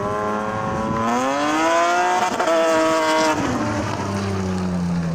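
BMW drift car's engine revving up hard and held high through a drift, then the revs dropping off about three seconds in and falling away.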